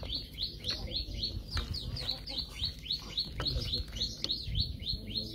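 A bird chirping rapidly and over and over, with short high notes that slide downward at about four a second.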